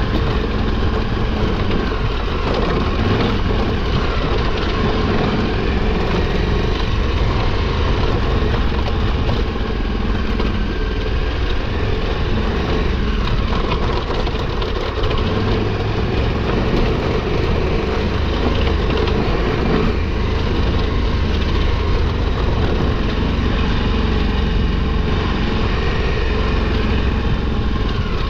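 KTM 1290 Super Adventure R's V-twin engine running low and steady as the motorcycle rolls down a steep dirt trail, with a steady rushing noise over it.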